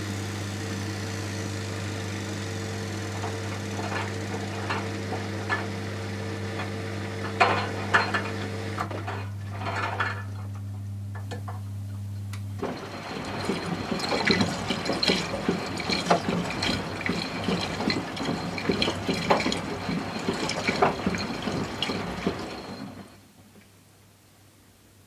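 Miele W 435 washing machine during its rinse stage: a steady electric hum with water gurgling and a few clicks, then about halfway the hum stops and water rushes and splashes for about ten seconds before dropping away near the end.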